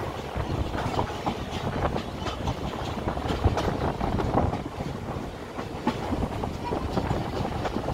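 Passenger train running along the line, heard from aboard the moving coach: a steady rumble of wheels on rail with irregular clicks and clacks as the wheels pass rail joints.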